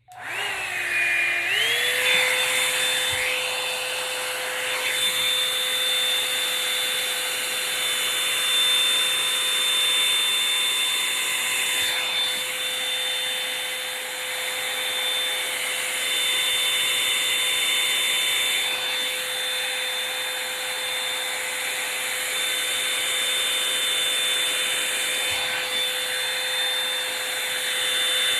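Revlon One-Step hair dryer brush switched on, its motor rising in pitch over the first second or two, then running steadily with a high whine over a rush of air.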